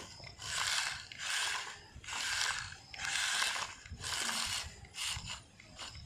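Remote-control toy tractor's small electric motor and plastic gearbox whirring in short bursts, about one a second.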